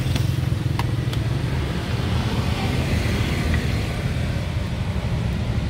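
Steady low rumble of road traffic. A few sharp plastic clicks in the first second or so come as the snap-on lid of a plastic food tub is unclipped.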